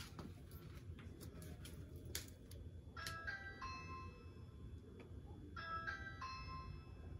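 A short, faint electronic chime of a few stepped notes, played twice about two and a half seconds apart, over a low steady rumble.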